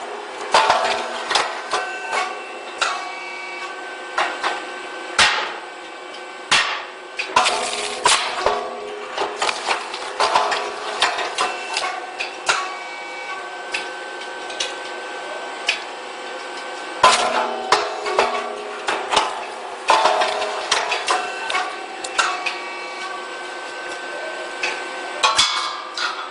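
Puffed corn cake machine running: a steady machine whine under many sharp, irregular clacks and knocks, several of them loud.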